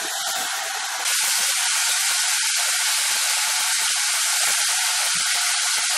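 Hedgehog mushrooms frying in hot oil and garlic in a saucepan: a steady hissing sizzle with constant quick crackling pops, the water from the fresh-picked mushrooms cooking off in the pan.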